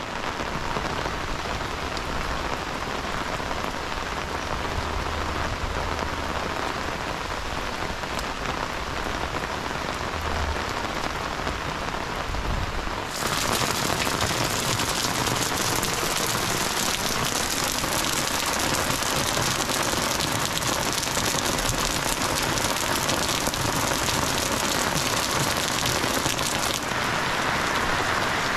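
Heavy rain pouring down in a steady, dense hiss. About halfway through it abruptly becomes louder and brighter.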